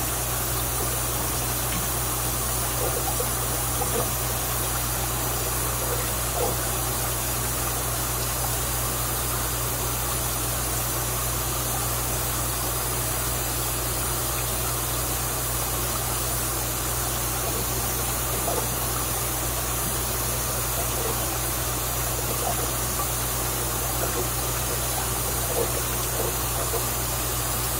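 Steady rush of water running into a fish tote from its return pipe, over a constant low hum of running equipment. There is light splashing near the end as a bucket of cichlid fry is tipped into the water.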